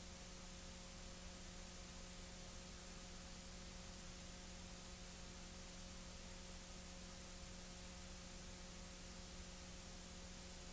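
Faint, steady hiss with a low electrical hum and no other sound: the background noise of an old silent-film transfer.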